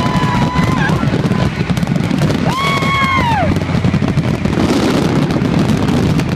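Fireworks display going off continuously, with dense booming bursts and crackle. Over it a long steady high note stops just under a second in, and a high whoop rises and falls about three seconds in.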